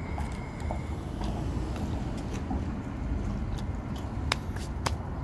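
Steady low rumble of passing road traffic, with two sharp clicks about four and five seconds in.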